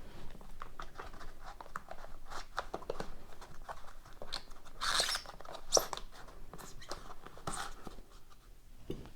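Hands opening a trading-card box: a string of small clicks and crackles from cardboard and wrapping being handled. There are louder rustling bursts about five and seven and a half seconds in, and a sharp click just before six seconds.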